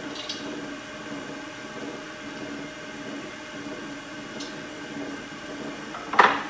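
Wood lathe running steadily with the bowl blank spinning, a constant motor hum with no cutting. A single sharp knock about six seconds in.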